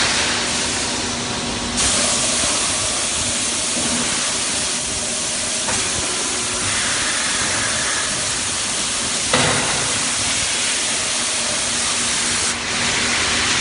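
Steady hiss and running machinery of an aluminium die-casting cell, with a single knock about nine seconds in.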